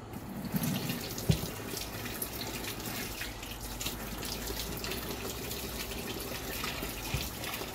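Kitchen sink faucet running, with hands being washed under the stream; the water splashes steadily. There is a sharp knock about a second in and a softer one near the end.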